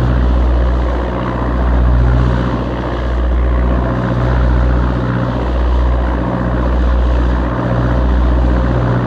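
A lifeboat's twin diesel engines running at a constant speed, heard from on board. It is a steady low drone whose level swells and dips slowly and regularly.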